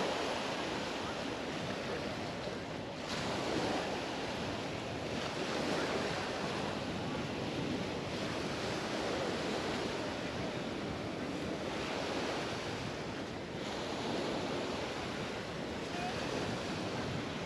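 Sea waves breaking and washing up on a sandy beach, swelling and easing every few seconds, with some wind noise on the microphone.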